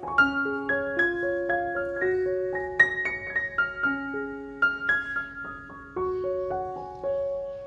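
Background music: a slow piano melody of struck, fading notes over held lower notes.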